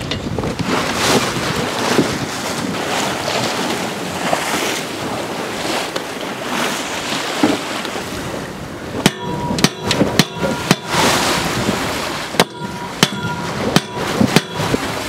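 Wind and sea noise rushing past the sailboat, then from about nine seconds in a hammer striking the broken aluminium whisker pole: a dozen or so sharp metallic blows in two quick clusters, each ringing briefly.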